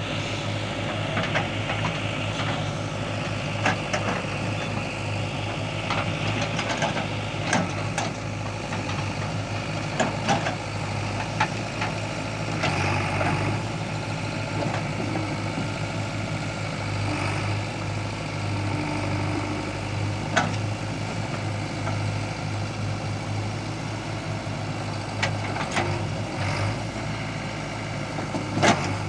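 JCB 3DX backhoe loader's diesel engine running steadily, with sharp metallic knocks and clanks a few seconds apart as the machine works.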